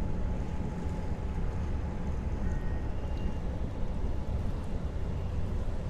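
Steady low rumble of the cruise ship Marina passing close alongside, mixed with wind buffeting the microphone.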